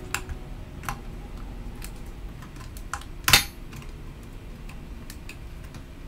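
Small clicks and taps as a laptop's 2.5-inch hard drive and its bracket are worked loose from the drive bay by hand, with one louder knock about three seconds in.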